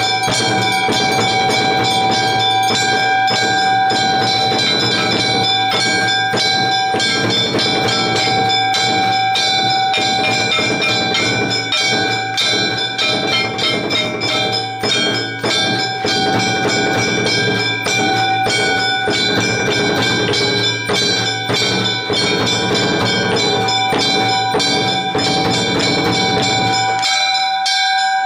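Temple bells rung rapidly and continuously, a fast clatter of strikes over a steady ringing. A lower, steady din under them cuts out about a second before the end.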